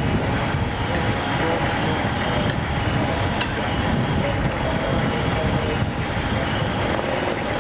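Steady fireground din: a heavy engine running in a continuous low rumble with a faint steady whine, and indistinct voices underneath.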